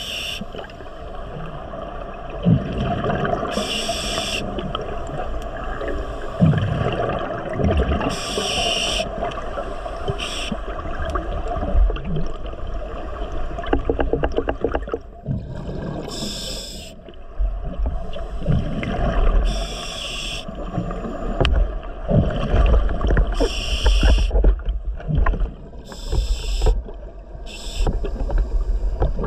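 Scuba diver breathing through a regulator underwater: a short hiss with each breath, roughly every four seconds, with bubbling and a low rumble of water between.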